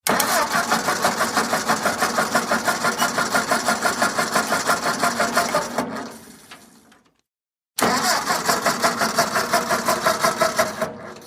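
Engine being cranked by its starter motor in two spells, each a quick, even chugging of about five or six compression pulses a second. The first lasts about six seconds and the second about three. Each winds down and stops.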